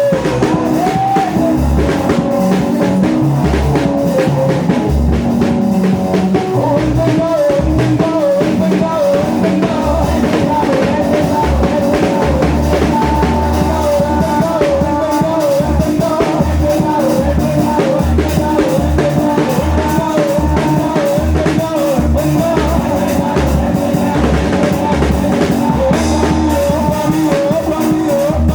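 Loud gospel worship music: a drum kit with a bass drum beating steadily under a singing lead voice and band instruments.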